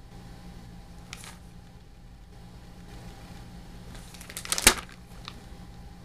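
Paper catalog rustling and crackling as it is handled, with a faint rustle about a second in and a louder crinkle and clicks a little past the middle; a steady low hum underneath.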